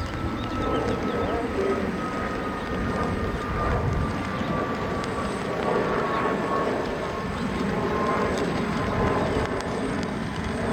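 Radio-controlled model airplane flying overhead, its motor a thin steady whine that slowly drops in pitch, over a steady low noise.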